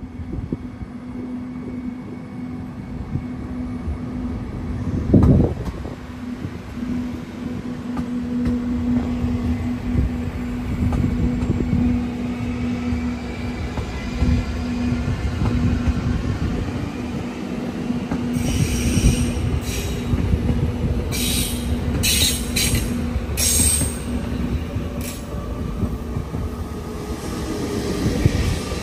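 A train moving along the station tracks: heavy rumble with repeated wheel knocks over the rails and a steady hum. There is a loud single knock about five seconds in, and several short high screeches in the last third.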